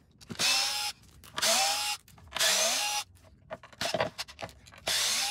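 Cordless drill-driver run in four short bursts of about half a second, its pitch rising as the motor spins up each time, backing out the screws of a plastic coolant pump housing. A few sharp clicks and rattles come between the third and fourth bursts.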